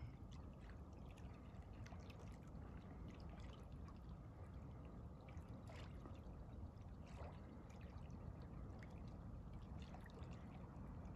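Faint water lapping and small splashes in the shallows at a rock shore, as ducks dabble and upend, with scattered tiny drips and plops.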